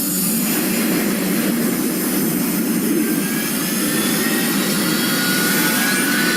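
A monster sound effect: a steady, jet-like rushing noise with a faint rising whine.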